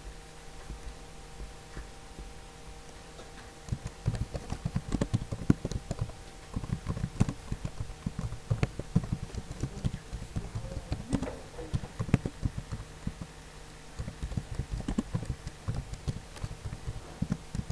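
Typing on a computer keyboard: fast runs of keystrokes, starting about four seconds in and broken by short pauses, over a steady hum.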